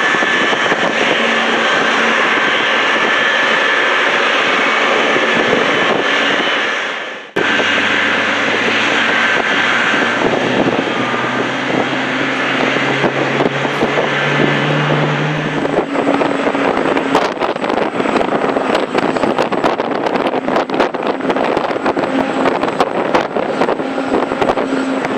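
Jet engines of a Boeing 777-300ER running at taxi power: a steady whine with thin high tones. The sound drops out briefly about seven seconds in. In the second half there are crackling clicks over it.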